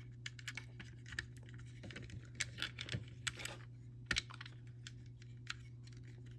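Plastic Lego bricks and tiles clicking and tapping against each other as pieces are handled, fitted and pressed onto a model. The small sharp clicks come in a quick cluster through the first four seconds, with only a few after that.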